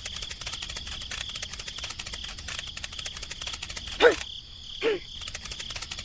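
Rapid, insect-like clicking over a steady high tone, broken by two short sounds that fall in pitch about four and five seconds in, the first the louder.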